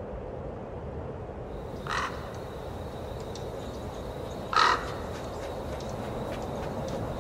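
A crow cawing twice, about two and a half seconds apart, the second caw louder, over a steady low outdoor background.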